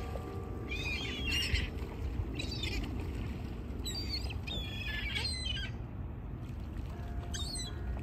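Gulls calling in short cries several times, over a steady low background rumble. Church bells come in faintly near the end.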